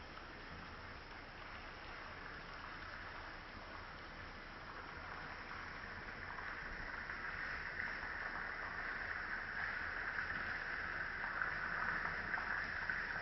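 Small stream flowing and babbling over rocks, a steady rush of water that grows louder through the second half.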